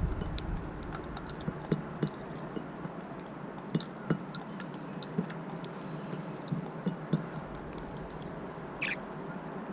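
Eurasian tree sparrows feeding: many light, scattered ticks and clicks of pecking, with a few brief high chirps and a louder chirp near the end.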